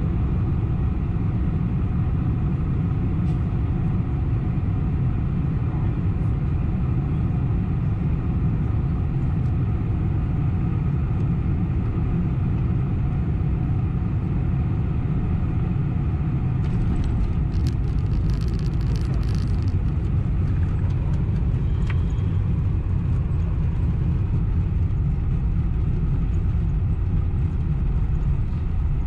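Cabin noise of a Boeing 747-400 with GE CF6-80C2 engines, heard from a window seat over the wing on final approach and landing: a steady, loud low rumble of airflow and engines. A brief rattle and hiss comes about two-thirds of the way through, around touchdown.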